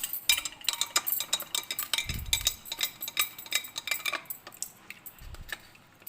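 Metal spoon stirring briskly in a vessel of liquid, clinking against its sides many times a second. After about four seconds the stirring stops and only a few scattered clinks remain.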